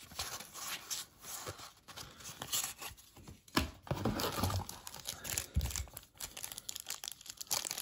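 A card pack's wrapper being torn open and crinkled by hand, an irregular run of crackling and tearing.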